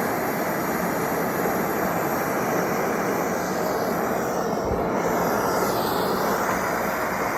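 Handheld gas soldering torch running with a steady roaring hiss, heating a copper pipe fitting while the silver-bearing solder melts into the joint.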